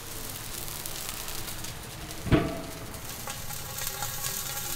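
Pork ribs and potatoes sizzling in a large wok, with one loud metallic clank about two seconds in that rings briefly, as the big metal lid is set down over the wok.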